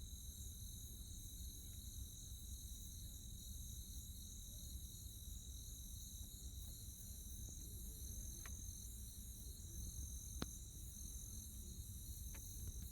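Faint, steady chorus of night insects, crickets among them, with high, even trilling over a low background hum. A few faint clicks come in the second half.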